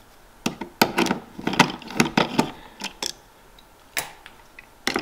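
A screwdriver working the screws of a motherboard's plastic AM4 retention clips out: an irregular run of sharp clicks and small rattles of metal on plastic, with a louder click about four seconds in and another just before the end.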